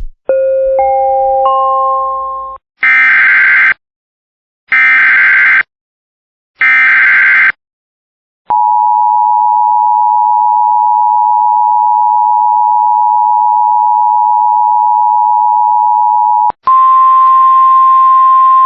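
Emergency Alert System alert tones. Three rising beeps are followed by three short, harsh SAME header data bursts, then the two-tone EAS attention signal (853 and 960 Hz together) held steadily for about eight seconds. A second steady, buzzy tone starts near the end.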